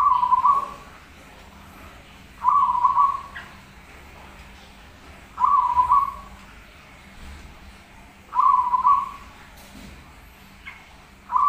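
Caged zebra dove (perkutut) singing in full song, repeating its short cooing phrase about every three seconds.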